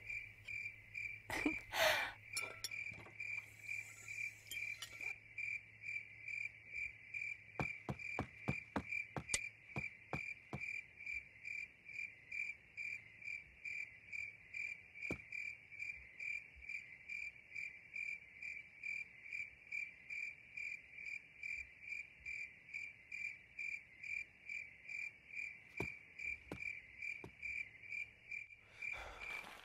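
Crickets chirping in a steady, even rhythm of short high chirps, a few a second, with a few faint clicks about eight to ten seconds in.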